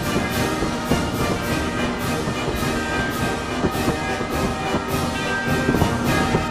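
Orchestral music playing over a steady stream of firework bangs and crackling.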